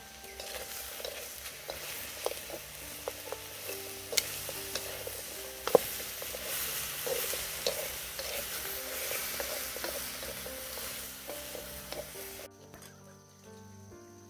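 Food sizzling as it is stir-fried in a hot pan, with sharp clicks and scrapes of a utensil against the pan; the sizzle cuts off suddenly near the end, leaving soft background music.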